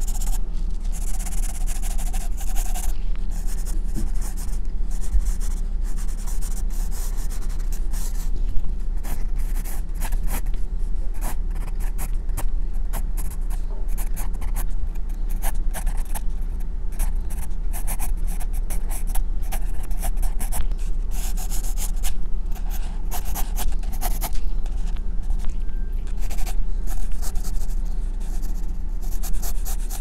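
Graphite pencil scratching across drawing paper in quick, irregular shading strokes, over a steady low hum.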